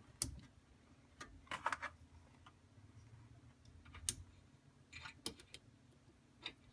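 Light, scattered clicks and small rustles as jumper wires' spade connectors are pushed onto small 12 V battery terminals, irregular, about seven in all.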